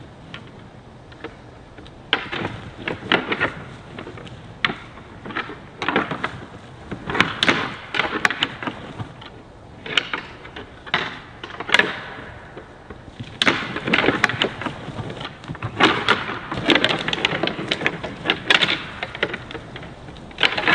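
Two bull elk sparring with their antlers locked: antler clacking and rattling against antler, in clusters of sharp clicks with quieter spells between.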